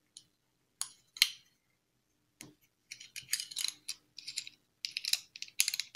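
Metal screw barrels of a Conrad Götz violin chinrest being unscrewed by hand: a few separate small clicks, then from about halfway a quick run of light metallic ticks and scrapes as the threads turn.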